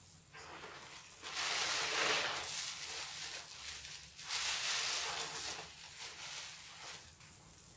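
Soap-soaked sponges squeezed by hand in a basin of thick suds, squelching wetly. Two long, loud squeezes, one about a second and a half in and another around four and a half seconds, with a softer one before them.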